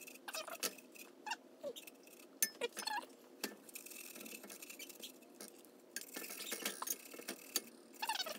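Fresh ginger root grated on a flat handheld metal grater held inside a stainless steel saucepan. Scattered clinks and taps of the grater against the pan come first, then a steady rasping of grating from about midway.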